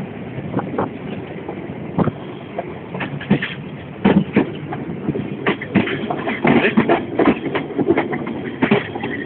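Passenger train running, heard from inside a carriage: a steady rumble with irregular knocks and clatter of the wheels over rail joints and points, getting busier about halfway through.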